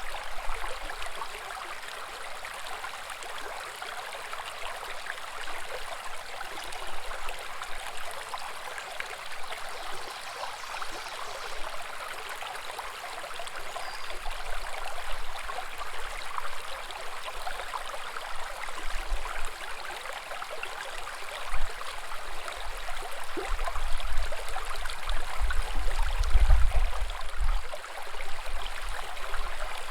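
Woodland brook babbling: a steady rush and gurgle of running water. Over the last ten seconds a low rumble comes in and out beneath it.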